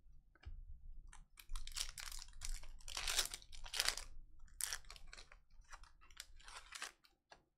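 Foil wrapper of a Donruss Optic basketball card pack crinkling and tearing as it is ripped open and pulled off the stack of cards. The noise comes as a run of short, sharp crackles, with the busiest stretch in the middle.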